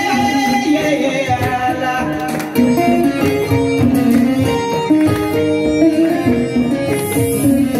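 Music: a melody of plucked string notes over percussion, growing a little louder about two and a half seconds in.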